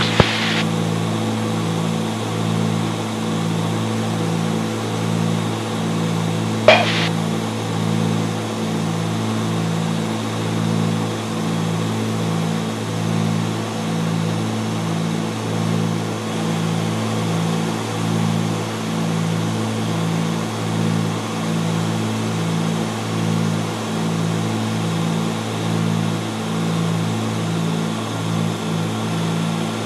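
Cessna 310's twin piston engines and propellers droning steadily in cruise-descent, heard inside the cabin, with a regular throbbing in the low drone. A brief click about seven seconds in.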